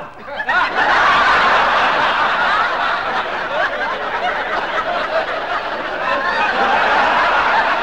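Studio audience laughing: a long wave of crowd laughter that swells about a second in and keeps going.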